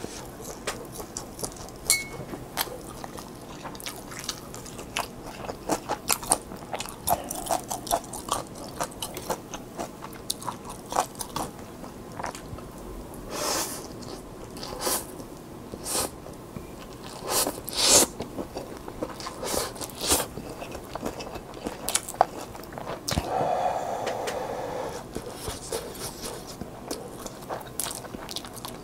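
Close-miked eating of instant yakisoba noodles with chopsticks: wet chewing clicks throughout, with several louder slurps of noodles around the middle.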